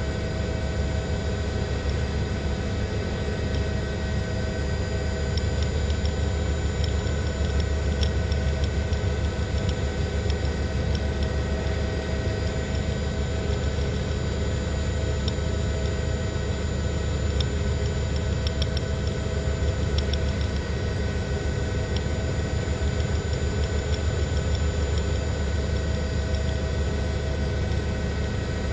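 News helicopter's engine and rotor running steadily: a constant low throb under a steady whine of several held tones, with a few faint scattered ticks.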